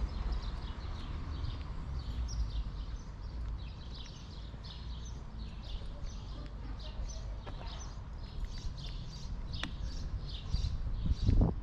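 Many small birds chirping in quick, repeated short calls, over a low background rumble and a walker's footsteps. There is a louder thump just before the end.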